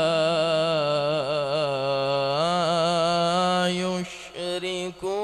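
A man's solo voice in melodic Quran recitation (tilawat), holding a long, wavering, ornamented note on one breath. He breaks off briefly about four seconds in and then resumes.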